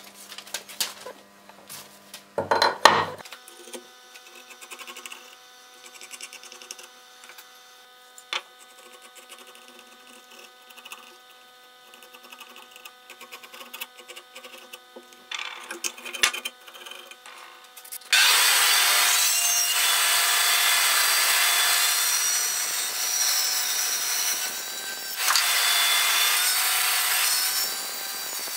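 Band saw cutting through a wooden board: a loud, steady rush of blade through wood that starts about two-thirds of the way in and keeps going, dipping briefly once. Before it come quieter rubbing and knocking on a workbench over a faint steady hum.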